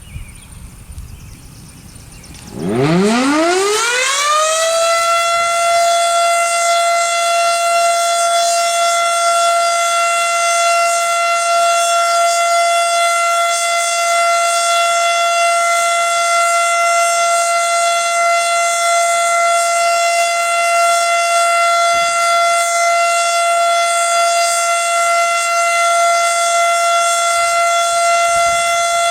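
Federal Signal Model 7 electromechanical tornado siren winding up from a low growl, about two and a half seconds in, to a steady single-pitch wail within a couple of seconds, then holding that tone: the steady alert signal of a siren test.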